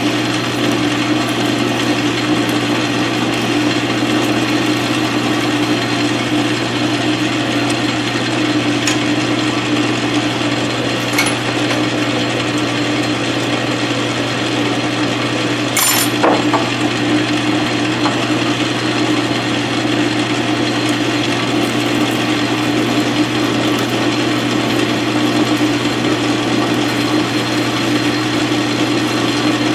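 South Bend 13-inch lathe running steadily while a twist drill held in the tailstock drill chuck bores into the spinning workpiece. One sharp click with a brief ring about halfway through.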